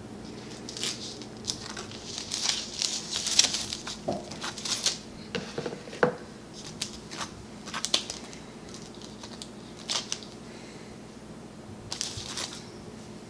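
Table knife spreading peanut butter on a slice of toast: irregular scraping strokes of the blade across the toasted bread, with a few light knocks.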